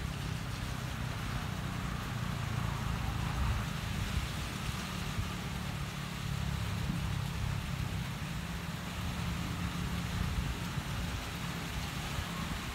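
Storm wind buffeting the microphone as a steady low rumble, over an even hiss of rain.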